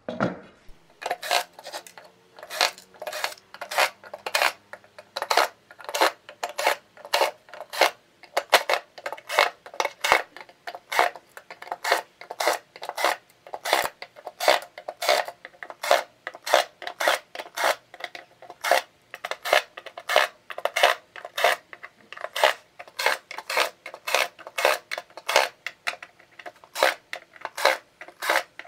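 Sharp metallic clinks, about two a second in a steady rhythm, with no steady motor whine beneath them.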